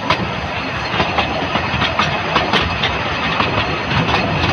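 Narrow-gauge railway train running along the track, a steady rumble with frequent irregular clicks and knocks from the wheels on the rails.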